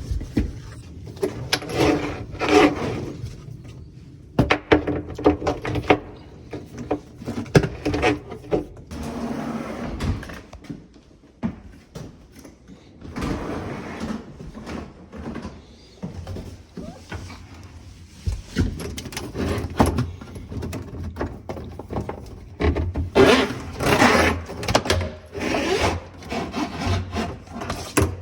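Irregular knocks, clunks and scraping from hands-on installation work on a dishwasher, with rubbing and sliding sounds of the unit and fittings being handled.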